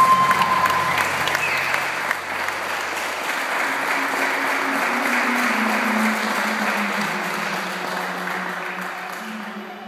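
Audience applauding, with a single held whistle for about the first second, over background music; the clapping fades away toward the end.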